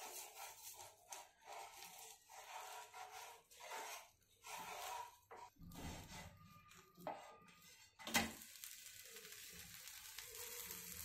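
A wooden spatula scraping under a jowar-flour ghavan on a hot tawa to loosen it, then a sharp slap about eight seconds in as the ghavan is flipped over. After that the batter sizzles steadily, the sizzle growing toward the end.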